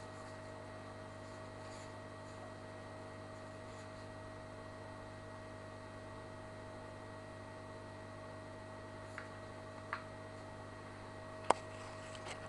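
Steady hum of an aquarium pump, with a few short clicks near the end, the sharpest about a second before the end.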